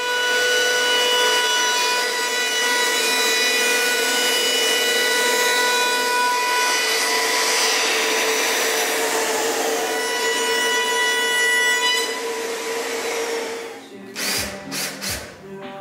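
Compact wood router with a roundover bit running at a steady high whine while it cuts along the edge of a walnut chair frame; it stops about 14 seconds in. A drill then runs in a few short bursts, boring into the corner of a white oak chair frame.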